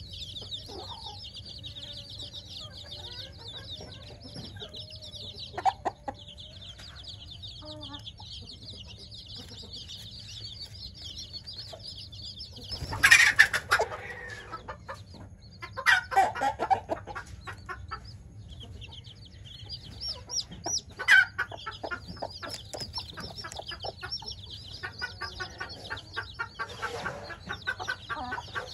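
A flock of week-old chicks peeping constantly in a high, busy chorus. A few louder, fuller calls stand out from it around the middle and again a little later.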